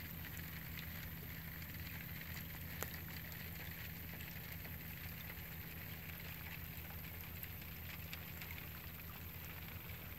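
Rain falling on a lake surface: a faint, steady patter of small drops, with one sharper tick about three seconds in, over a low steady hum.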